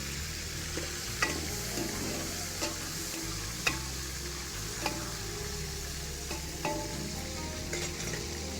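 Onions and tomato frying in oil in a cooking pot, sizzling steadily, with about six sharp clinks of a utensil against the pot as they are stirred.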